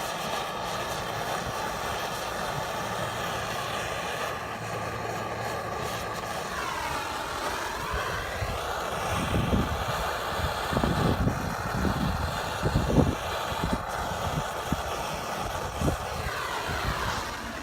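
Propane torch burning with a steady hiss as it plays on the horn's melting plastic, with irregular low wind buffeting over the middle seconds.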